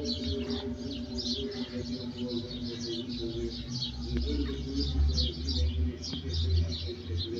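Small birds chirping busily and repeatedly over a low rumble, while the hum of the church bells fades out over the first few seconds.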